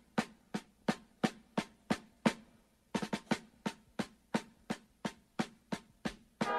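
Music: a drum cadence of sharp, steady strikes about three a second, some doubled. A brass band comes in with held chords right at the very end.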